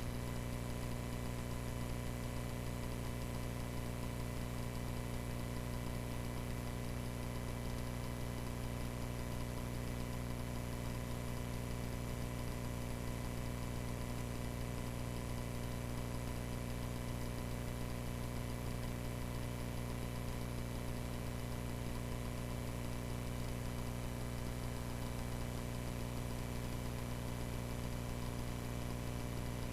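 Cessna 140A's small piston engine idling steadily, a low, even hum with no change in speed.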